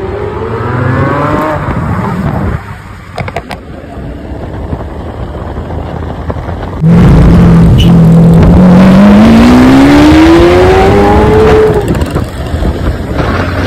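Lamborghini Aventador S V12 with a Balboni exhaust, accelerating hard. Its note rises in pitch, drops at a gear change about two and a half seconds in, and a few sharp cracks follow. From about seven seconds in it is much louder, holds steady briefly, then climbs for about five seconds before dropping at another upshift near the end.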